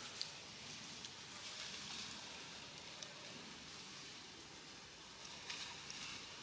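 Faint outdoor forest ambience: a steady, even hiss with a few soft clicks.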